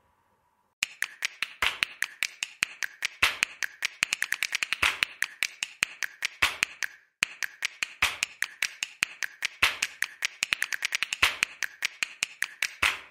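A rapid, uneven series of sharp clicks or taps, several a second, with a short break a little past the middle.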